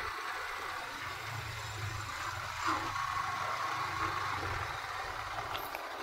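Motorcycle engine running at low revs, a steady low rumble under an even hiss of wind and road noise.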